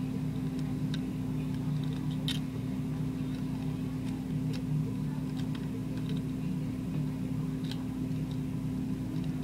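Hard plastic Lego Bionicle parts clicking a few times as the figure is handled and its pieces refitted, the loudest click about two seconds in, over a steady low electrical hum.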